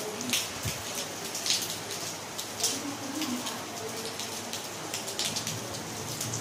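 Steady rain falling, with frequent irregular sharp taps of heavy drops striking nearby surfaces.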